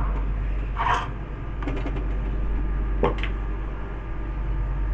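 Stovetop milk steamer's steam wand hissing steadily in a pitcher of milk, with a brief louder sputter about a second in. A few sharp metal clinks follow near the middle.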